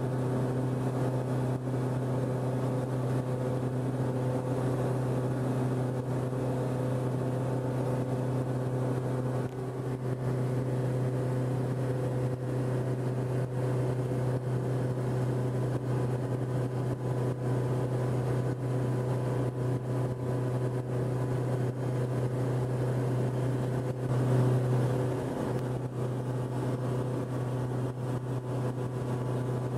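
Cessna 162 Skycatcher's four-cylinder Continental O-200 engine and propeller droning steadily in level flight, with a brief swell in loudness about three-quarters of the way through.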